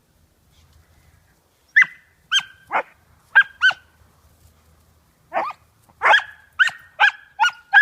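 Puppy barking in short, high-pitched yips: a quick burst of about five, a pause, then about six more. Play barking that invites another dog to chase.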